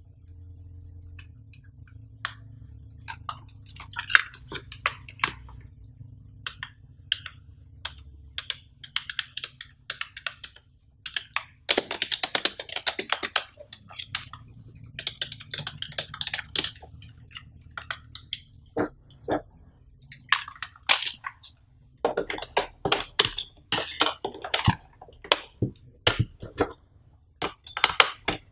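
Plastic clicks and clatter of a Logitech K375s wireless keyboard being handled and turned over, its keys clicking under the fingers. There are irregular single clicks, with denser runs of clatter about twelve seconds in and again past twenty seconds.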